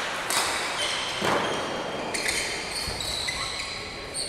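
Court shoes squeaking on the hall floor, several short high squeaks, mixed with a few sharp racket hits on shuttlecocks from badminton play.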